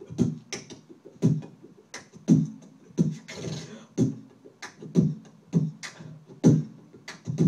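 Freestyle dubstep beatboxing into a microphone: a steady beat of deep kick-drum sounds and sharp snare and hi-hat clicks made with the mouth, with a hissing sweep about three seconds in.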